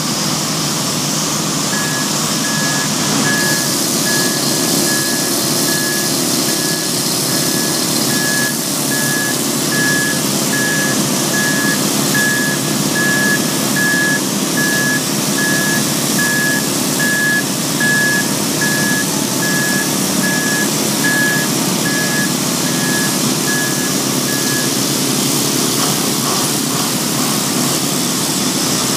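XIAJIN XJ968-28 forklift block loader's diesel engine running as it manoeuvres, its reverse alarm sounding a steady series of single-tone beeps from about two seconds in until about four seconds before the end.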